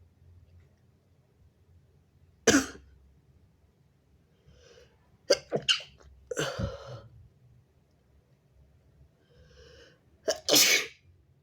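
A person sneezing several times, with a congested nose: a single sharp sneeze, then a quick run of sneezes, and one more near the end after a faint in-breath.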